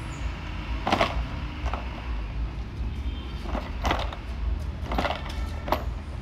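Irregular knocks and clunks of metal parts, about six over a few seconds, as the AC condenser is worked free and lifted out of a 2019 Honda CR-V's front end, over a steady low hum.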